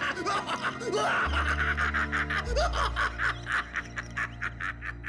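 A man's drawn-out villainous laugh, a long run of quick 'ha-ha' pulses that trails off near the end, over dramatic film music whose low bass notes come in about a second in.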